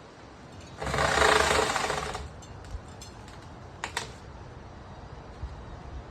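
Small electric chainsaw run in a short burst of about a second and a half, then a few sharp clicks a couple of seconds later.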